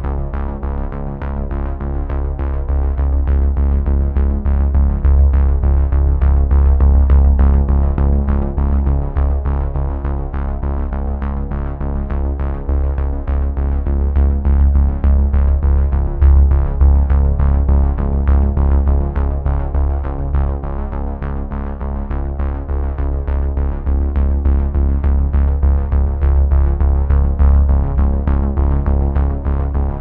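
Background electronic music with synthesizer, a heavy bass and a steady beat.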